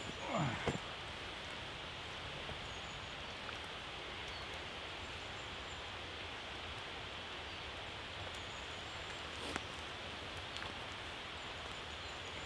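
Steady outdoor background hiss in a forest camp, with a short falling squeak just after the start and a single sharp click about three-quarters of the way through.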